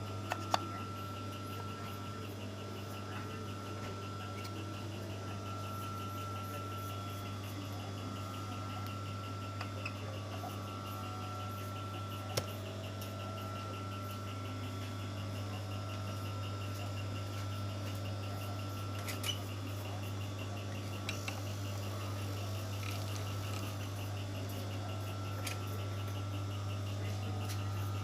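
Overlock (serger) sewing machine's electric motor running steadily: a constant low hum with a faint, fast, even ticking, and a few light clicks.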